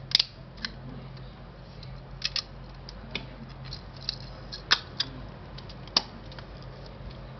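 Small, irregular clicks and taps from a Yashica Electro 35 CC rangefinder camera being handled and turned over in the hands, about eight or nine sharp clicks in all. A low steady hum runs underneath.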